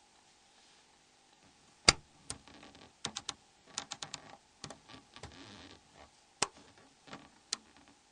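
Sharp plastic clicks of a Nokia E70's T9 cover snaps being pried loose with a plastic opening tool. The loudest click comes about two seconds in, a quick run of clicks follows a second later, with a brief scrape in the middle and two single clicks near the end.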